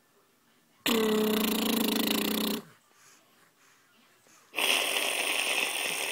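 Two loud, playful noises made by a man close to the microphone: a buzzing, snore-like blow lasting under two seconds, then after a pause a breathy, hissing blow of about the same length.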